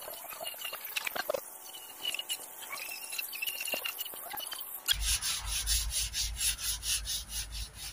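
A few light clicks and taps, then about five seconds in a rhythmic hand scraping on wood starts, about four strokes a second, with a low rumble under each stroke.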